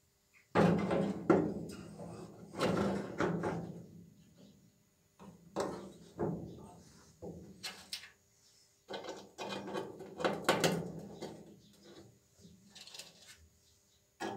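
Sheet-steel repair panel being handled and fitted against a classic Mini's rear wheel arch: irregular clusters of knocks, scrapes and rattles of thin metal on metal, with short pauses between them.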